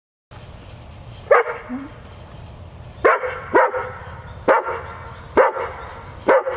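A dog barking: six sharp single barks, the first on its own, then a quick pair and roughly one a second after that.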